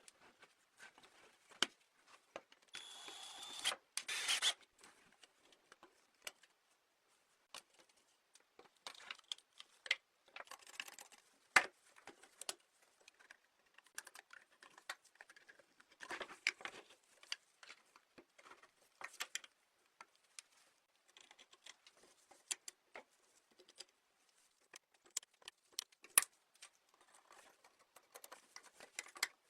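Hands working on a die-cast model car: small plastic and metal parts clicking, tapping and rattling in irregular bursts, with a brief whirring about three seconds in.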